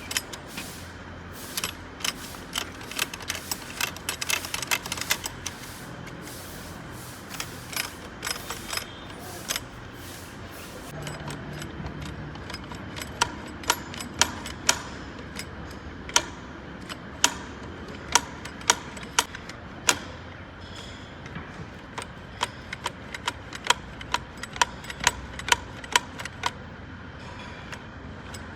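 Sharp metallic clicks and taps, irregular, during hand work on tractor hydraulic lift cylinder parts. They come in quick clusters in the first ten seconds, then as single taps about half a second to a second apart until a couple of seconds before the end.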